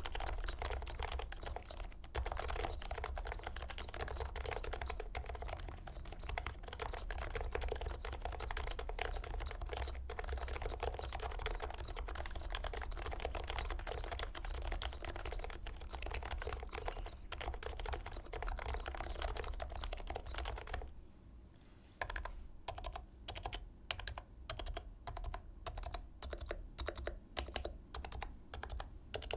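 dnworks Taycan Topre keyboard with heavy 45g rubber domes, Pro 2 sliders and silencing rings, stainless steel top-mount plate and HHKB-profile keycaps, typed on fast in a dense run of keystrokes. About three-quarters of the way through the typing stops for a second, then picks up again as slower, more separate keystrokes.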